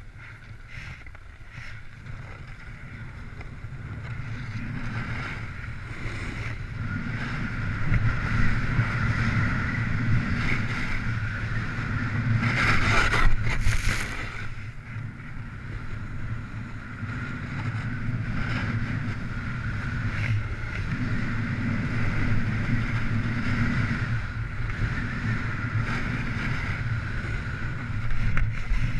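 Snowboard running down a groomed slope: the board scraping over packed snow, with wind rushing over the action camera's microphone. The rush grows louder as speed builds over the first several seconds, and there is a loud, harsh burst of snow noise about halfway through, as the camera goes down close to the snow.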